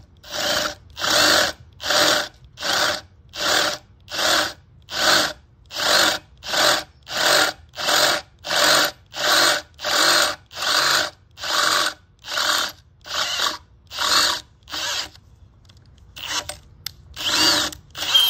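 Cordless drill run in short trigger bursts, about one and a half a second, as a twist bit widens a hole in a metal gas pipe to half an inch. After a short pause near the end, the bursts start again.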